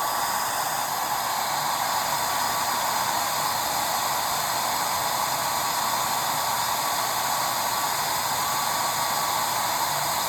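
Hair dryer blowing steadily, a rush of air with a faint steady whine in it.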